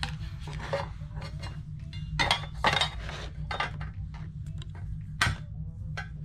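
Clinks and knocks of a metal watch tin being handled and its lid put back on, a run of small clicks with the loudest knocks a little past two seconds in and again just past five seconds, over a steady low hum.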